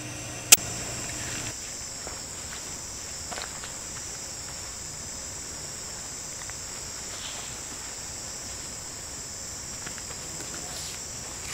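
Steady high-pitched chirring of autumn night insects. A single sharp click comes about half a second in, and a low hum stops about a second and a half in.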